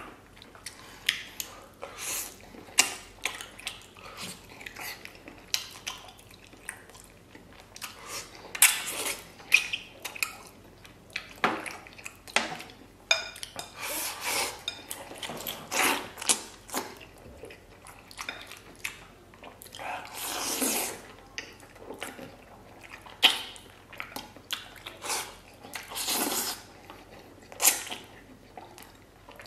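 Close-miked eating: wooden chopsticks clicking and scraping irregularly against a porcelain rice bowl, with chewing and the sound of rice and braised pig trotter being shovelled from the bowl into the mouth.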